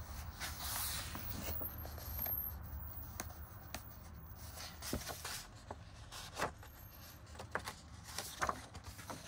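Colouring book pages being turned and handled: soft paper rustles and scattered light taps and clicks.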